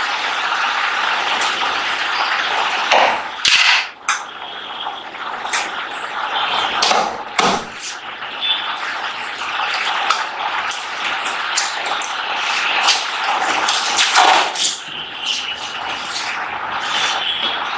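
Cardboard box being opened by hand: its flaps and packaging rustle and scrape in a string of short sharp crinkles, loudest about three to four seconds in and again around fourteen seconds, over a steady background hiss.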